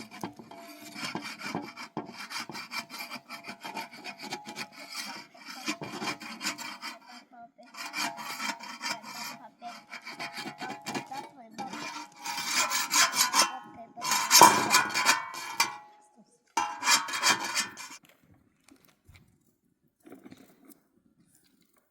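Rapid repeated scraping strokes in several runs with short pauses, stopping about eighteen seconds in.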